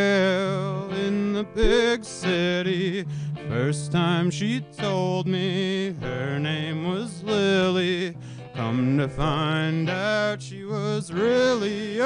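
Live folk-rock band: a man singing lead with a wavering, held melody over strummed acoustic guitar, electric guitar and bass guitar.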